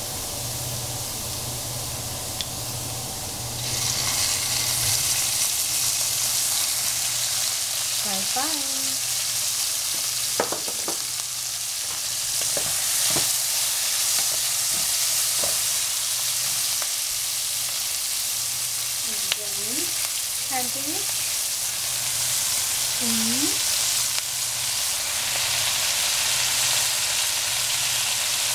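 Food sizzling and frying in hot oil in a pan while being stirred, the sizzle getting louder about four seconds in, with occasional light clicks of the utensil.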